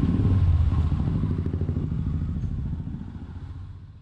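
Motorcycle engine running at low road speed, a steady low pulsing that fades away over the last second or so.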